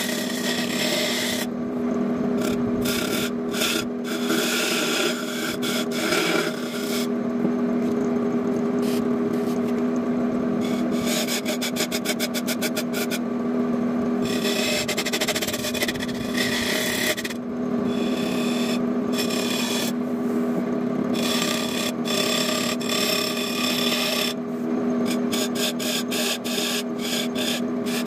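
Wood lathe running with a steady motor hum. A hand-held turning chisel scrapes and cuts grooves into the spinning wooden cylinder, and the scraping comes and goes as the tool is pressed in and eased off.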